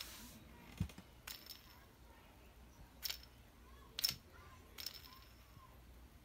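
Light clicks and taps of small wooden toy pieces being handled, about five spread over a few seconds, with a duller knock about a second in.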